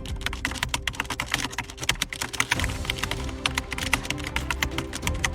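Rapid computer-keyboard typing, a dense run of clicks, over soft background music with sustained low tones.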